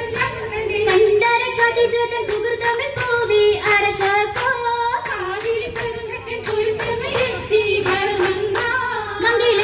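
Oppana song: women's voices singing a wavering melody over a steady beat of hand claps.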